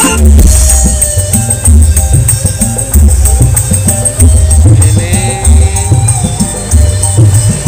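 Music with a heavy, pulsing bass beat played very loud through a stacked-subwoofer outdoor sound system (East Javanese "horeg" style).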